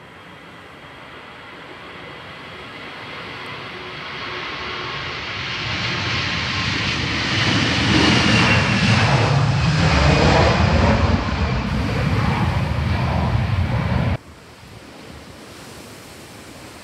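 Airbus A320-family jet's engines passing on the runway, the noise building steadily as the aircraft nears, with a high whine that dips slightly in pitch as it goes by. The sound cuts off abruptly about fourteen seconds in, leaving a faint hiss of wind.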